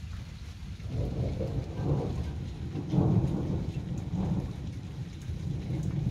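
Rolling thunder rumbling in several swells, loudest about three seconds in, then easing off.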